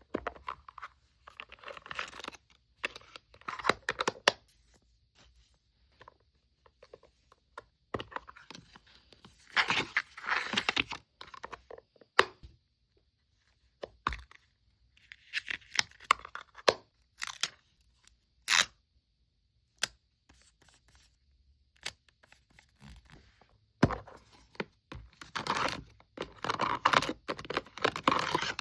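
Photocard packing done by hand: packing material being torn, rustled and scraped, in irregular short bursts with sharp clicks and silent pauses between, busiest near the end.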